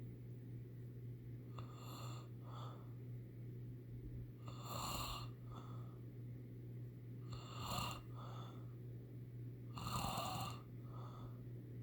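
Snoring, steady and rhythmic: four snores about two and a half to three seconds apart, each a long rasp followed by a short second puff. The snore near the end is the loudest.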